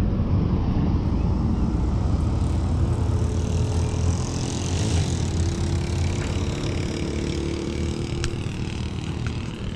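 Steady low rumble of a moving road vehicle, with wind on the action camera's microphone and faint engine tones over it.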